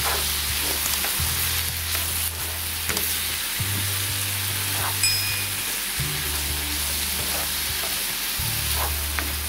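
Diced zucchini, tomato and onion sizzling in a frying pan as they are stirred with a plastic spoon, with occasional scrapes and taps of the spoon against the pan.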